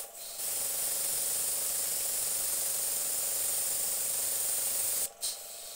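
Airbrush spraying paint: a steady hiss of air and paint that starts just after the beginning, cuts off about five seconds in, then gives one short puff.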